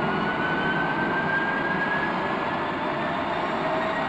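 Jet engine running up on a test bed: a steady roar with a whine that climbs slowly in pitch as the engine spools up, and a second, lower whine joining near the end.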